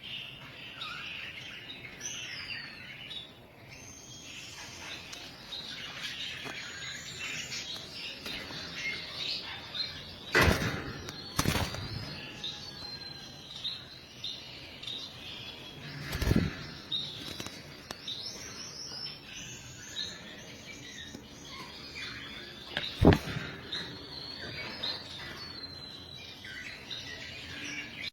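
Budgerigars chattering and warbling continuously with quick, high chirps and trills. Several sharp knocks cut through the chatter, the loudest about 23 seconds in.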